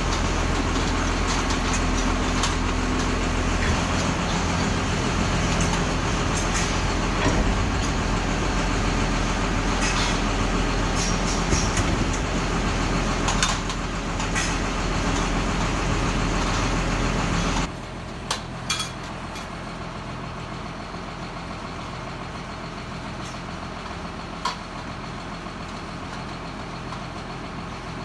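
Supreme vertical feed mixer wagon and the engine driving it running steadily at close range. About two-thirds of the way in, the sound cuts abruptly to a quieter steady hum with a few sharp clicks.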